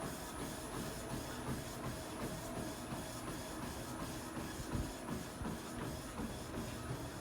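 Ceiling fan running: a steady motor hum with a faint high whine and a soft rhythmic pulse, three or four times a second, from the turning blades.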